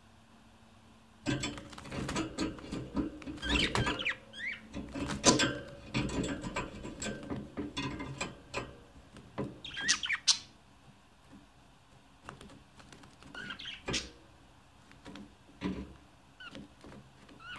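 Budgerigars chattering and warbling: a dense run of quick chirps, squawky calls and clicks starting about a second in, thinning out to a few scattered short chirps after about ten seconds.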